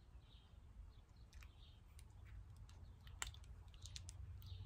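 Near silence: a low room-tone hum with a few faint clicks and faint high chirps.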